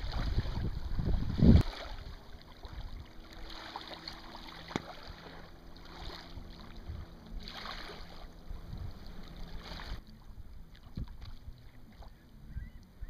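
Wind rumbling on the microphone and water lapping against a small sailboat's hull, with a knock about a second and a half in. After that it is a quieter, even wash of water and light wind under a faint steady hum.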